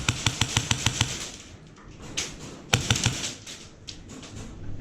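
An airsoft gun firing a quick string of shots, about seven a second, that stops a little over a second in, followed by a few single sharp cracks.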